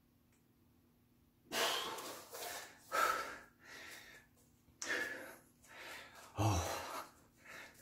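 A man's forceful breathing: after a second and a half of near silence, several loud, sharp exhales and gasps as he strains to flex his muscles.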